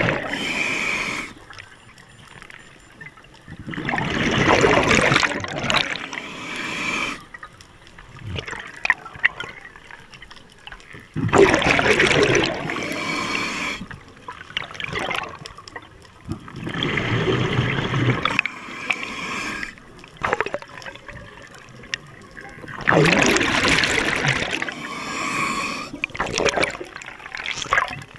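Scuba diver breathing through a regulator underwater: a loud rush of exhaled bubbles about every six seconds, each lasting two to three seconds, with quieter stretches between breaths.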